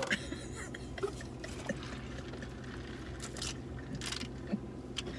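Drink sipped through a straw from a paper cup: a couple of short slurping hisses a little past halfway, with a few small clicks, over a steady low hum inside a car.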